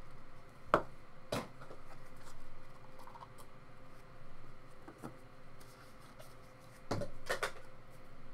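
Handling of a Panini Pantheon trading-card box: soft rustling of cardboard and cards, with a few sharp taps and knocks as the lid is lifted off and the stack of cards is slid out.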